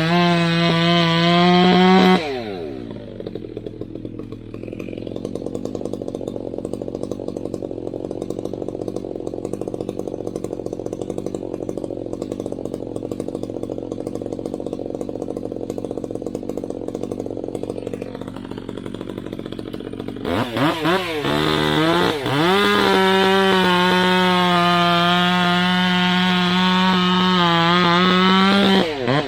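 Two-stroke chainsaw running at full throttle, then dropping to a lower, quieter idle about two seconds in. Near the end it is revved up in a few quick blips and held at full throttle again, with a brief dip just before the end.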